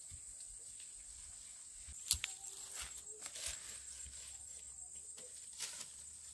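Insects buzzing steadily in a high thin tone, with scattered soft footsteps and rustling in the undergrowth and one sharp click about two seconds in.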